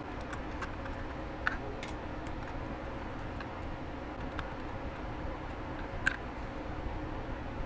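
Scattered light plastic clicks and ticks from a computer mouse and small tools being handled during repair, with two sharper clicks about a second and a half in and about six seconds in, over a steady low background hum.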